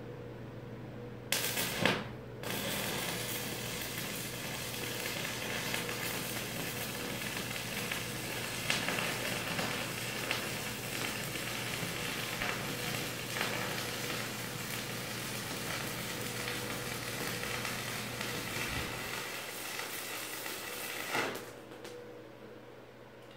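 Stick (arc) welding a steel post to a steel beam. The arc strikes about a second in, breaks off briefly, then restarts and burns steadily for about nineteen seconds before it is broken off near the end.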